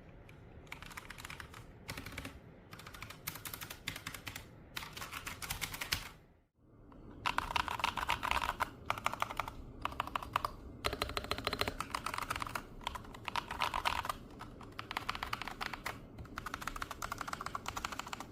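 Typing on a budget hot-swap mechanical keyboard in two takes, split by a brief break about six seconds in: first as the board came before modding, then after the mod. In the second take the keystrokes are louder.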